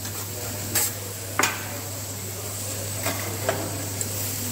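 Metal spatulas clanking and scraping on a flat steel teppanyaki griddle, four sharp clanks with the loudest about a second and a half in, over a steady sizzle of food frying and a constant low hum.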